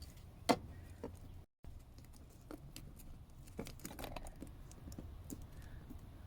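Scattered small clicks and taps of electrical wire and hand tools being handled, with a sharper click about half a second in.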